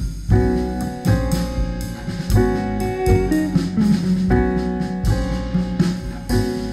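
Music with guitar and drums played back through an Aiwa NSX-V30 mini hi-fi system's speakers, as a sound test.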